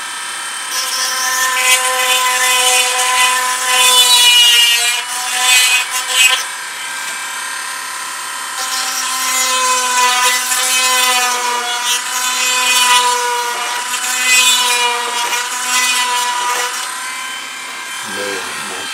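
Dremel rotary tool with a 1/16-inch drill bit, running at a steady high whine. In two long spells the bit is pressed in and grinds with a gritty hiss, the pitch sagging a little under load, as it elongates a wing-mounting hole toward the wingtip side.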